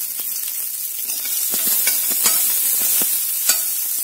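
Chopped shallots, green chillies and mustard seeds sizzling in hot oil in a steel kadai, crackling now and then. The sizzle grows louder about a second in.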